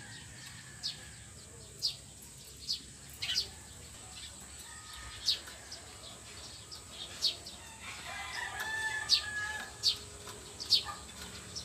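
Rooster crowing once, about eight seconds in, for about a second and a half. Around it, a small bird repeats short, sharp, falling chirps about once a second.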